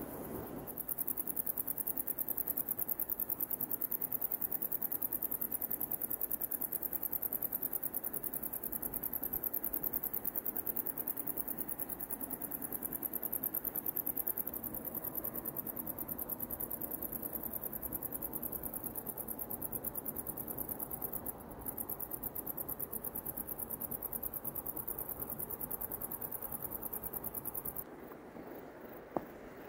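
Insects chirring: a steady, high-pitched, rapidly pulsing buzz over a soft outdoor hiss, cutting off abruptly near the end.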